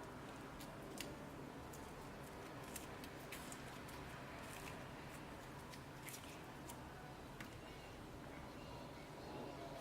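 Faint, scattered clicks and crackles of slime being handled, over a low steady background noise.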